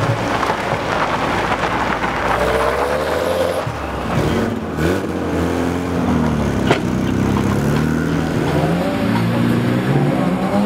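Drift cars' engines revving up and down, the pitch rising and falling again and again over a rough rushing noise, with one sharp crack about two-thirds of the way in.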